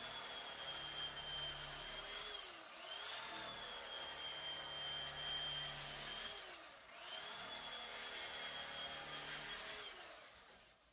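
Electric bread knife running with its blades sawing through thick cushion foam: a steady motor whine that sags in pitch and recovers twice, then stops near the end.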